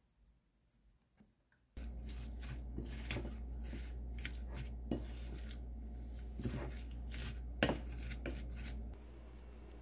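Wooden spoon stirring shredded cabbage into Korean pancake batter (pancake and frying flour with a little water) in a bowl, giving irregular wet scrapes and knocks against the bowl over a steady low hum. The mixing starts about two seconds in after a near-quiet stretch, with its sharpest knock near the end.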